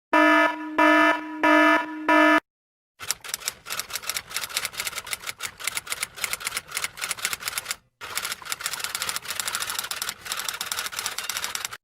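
Four short electronic beeps, evenly spaced, then after a brief pause a long run of rapid key clicks like typing, with a short break about eight seconds in.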